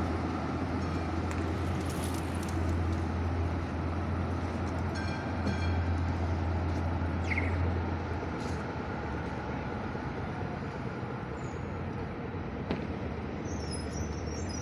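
Street traffic: vehicle engines and tyre noise, with a low steady engine hum that drops away about halfway through. A few high, thin squeaks come near the end.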